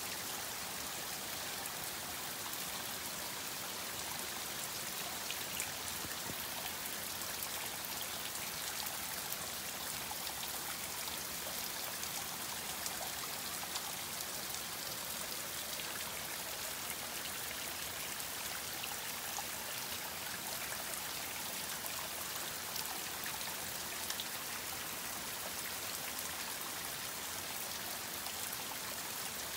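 Water trickling and dripping down a rock face: a steady splashing hiss flecked with small drips.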